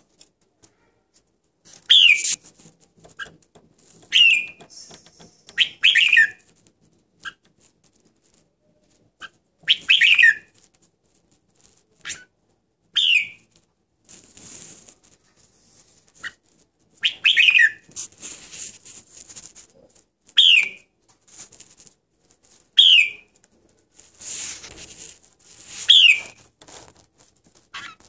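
Red-whiskered bulbul giving short, loud chirping calls every two to three seconds, each a quick falling sweep. Soft rustling sounds come between some of the calls.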